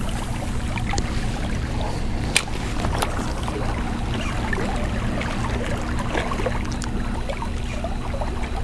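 Steady low motor hum with a few faint scattered clicks and taps.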